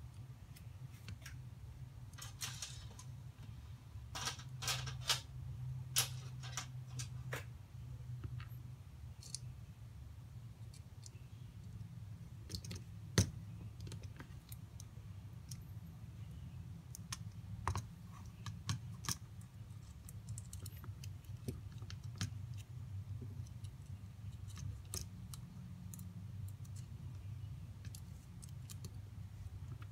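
Plastic parts and wires of a 4M Tin Can Cable Car kit clicking and tapping as they are handled and fitted together by hand: scattered small clicks, busiest in the first several seconds, with one sharper knock about 13 seconds in.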